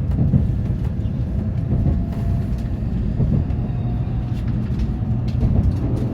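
Running noise of a Tokaido Shinkansen train heard inside the passenger car just after departure: a steady low rumble with scattered light clicks.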